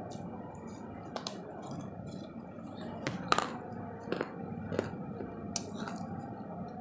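Teeth biting into and cracking pieces off the rim of an unglazed clay pot (matki) and crunching them: a string of sharp cracks, the loudest a little over three seconds in.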